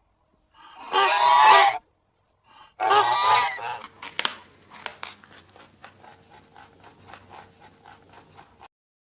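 Domestic goose honking: two loud honks, then a fast run of softer rhythmic calls, about four a second, that stops suddenly near the end.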